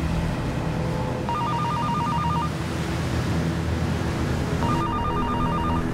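Telephone ringing with an incoming call: two rings of a rapid warbling two-note trill, each about a second long and about three seconds apart, over a steady low rumble.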